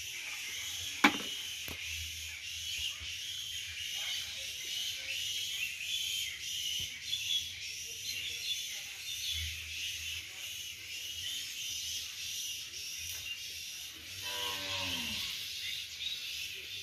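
A cow moos once near the end, a single call about a second long that falls in pitch. Under it runs a steady high-pitched buzz, and a sharp click about a second in is the loudest sound.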